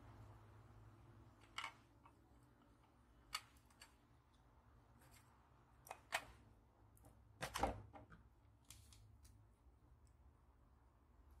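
Scattered light clicks and knocks of small parts and hand tools being handled, about half a dozen, the loudest a short clatter a little past the middle, over a faint low hum.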